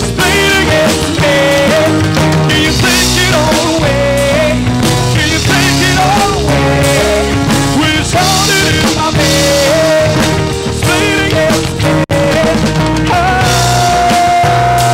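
Rock band playing an instrumental passage without sung lyrics. A melodic lead line slides and bends between notes over a steady accompaniment. The sound cuts out briefly about twelve seconds in, and the lead then holds one long note near the end.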